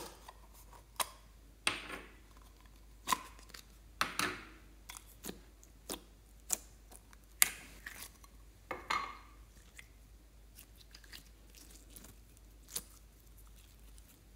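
A plastic slime tub being opened and handled, then glossy glitter slime pulled out and stretched by hand, giving irregular sharp clicks and short wet squelches and pops.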